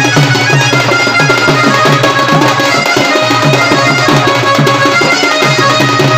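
Traditional Odia folk music: rapid hand-drum strokes, their low notes dipping in pitch, under a sustained melody line of held tones.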